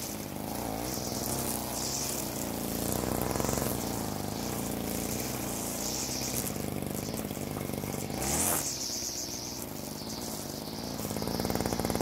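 NAC TP248-10SP 25 cc two-stroke petrol string trimmer running while its line head cuts short grass, the engine speed rising and falling with the throttle. The swish of the line through the grass comes and goes.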